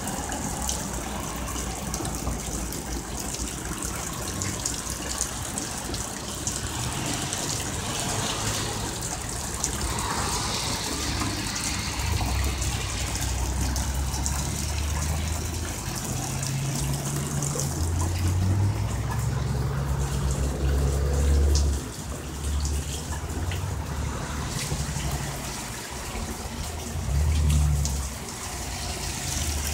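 Heavy rain falling hard and steadily, a continuous hiss of water, with irregular low rumbles in the second half.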